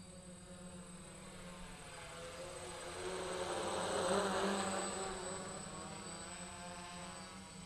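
DJI Flame Wheel 450 quadcopter buzzing from its four SunnySky A2212 980KV brushless motors and 10-inch propellers. It grows louder as it flies in close about four seconds in, then fades as it moves away, its pitch shifting.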